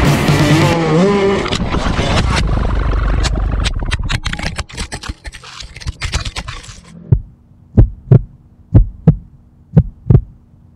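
A motocross bike engine and music break off in the first second and a half as the handlebar-mounted GoPro comes off. A few seconds of scattered knocks and scraping follow as it tumbles into the grass. From about seven seconds a heartbeat sound effect plays: paired thumps about once a second over a faint hum.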